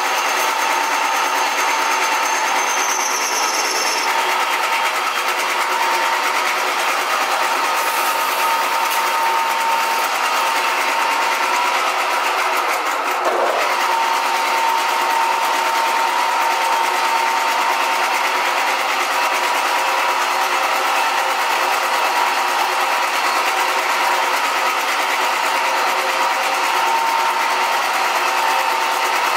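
Small benchtop metal lathe running, spinning an aluminum workpiece being turned down, with a steady whine from its motor and gearing.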